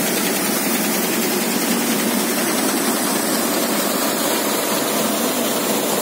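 Paddy thresher-cleaner running steadily while paddy is fed by hand into its chute: a loud, even machine noise.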